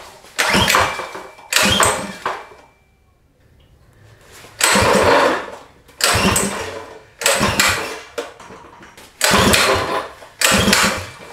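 Mud motor's 6.5 hp gas engine being pull-started by its recoil rope, cold and not run in two months. It cranks over in about eight short yanks, with a pause of a couple of seconds after the second one, and never catches. The owner suspects the carburetor needs cleaning.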